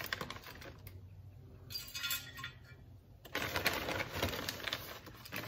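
Cherry wood chips dropping into a Masterbuilt electric smoker's metal wood-chip loader tray: light clicks and rattles, scattered at first and then a denser run in the second half.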